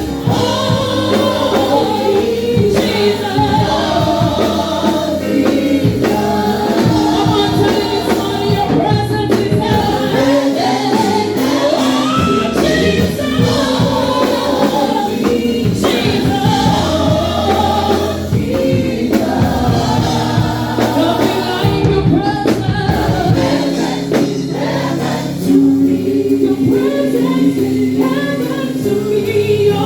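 Church praise team singing a gospel worship song in chorus, several voices together over steady instrumental accompaniment.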